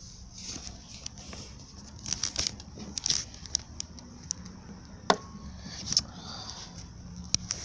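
Kitchen knife knocking and scraping on a wooden cutting board among cherry tomatoes: several sharp knocks and clicks, the loudest about halfway through with a short ring, amid rustling handling noise.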